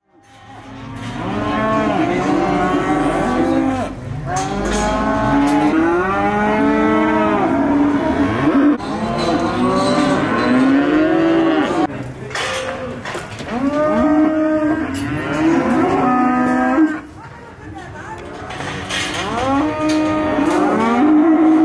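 Many young cattle mooing and bellowing over one another, their calls overlapping almost without a break. The sound fades in at the start and has a short lull about three-quarters of the way through.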